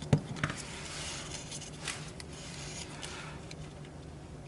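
Light rubbing and a few small clicks of thin wires being handled and fed through a hole in a 3D printer part, over a faint steady low hum.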